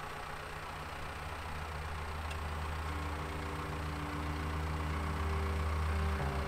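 Tractor engine running steadily with a deep, even note, slowly growing a little louder.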